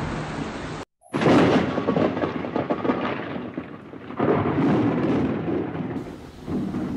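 Close thunder in a heavy thunderstorm: a sudden loud crack about a second in that rolls into rumbling and fades, then a second surge of rumble about four seconds in, over the hiss of rain.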